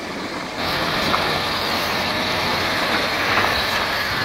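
A heavy truck's engine running steadily as the truck reverses slowly. The sound grows louder about half a second in.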